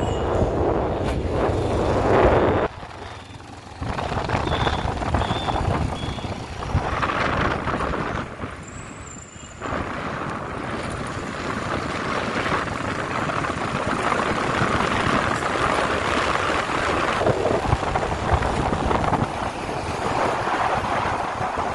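Motorcycle ride noise: wind rushing over the microphone with engine and road noise underneath, dropping away briefly twice.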